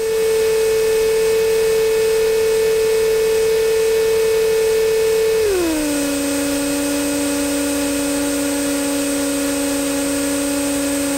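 Steady whine with overtones from the Europa's running engine, picked up through the cockpit intercom feed. About halfway through it glides smoothly down to a lower pitch and holds there as the engine revs come down.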